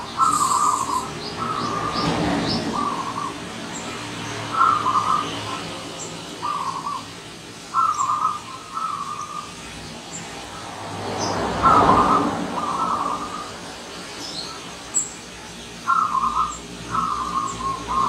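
Zebra dove cooing: repeated phrases of quick staccato coos, one phrase every second or two with gaps between. A vehicle passes by twice, swelling and fading about two seconds in and again around twelve seconds, and small birds give short high chirps in the background.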